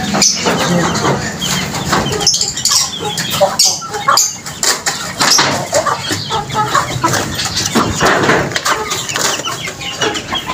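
Chickens clucking, with short bursts of wing flapping.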